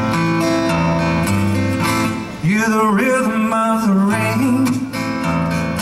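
Live acoustic music: an acoustic guitar strumming chords with low bass notes. A gliding, wavering melody line comes in about two and a half seconds in and drops out near the end.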